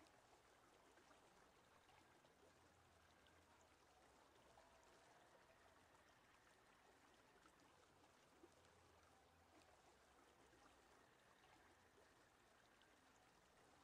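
Near silence: a faint, steady hiss with nothing distinct standing out.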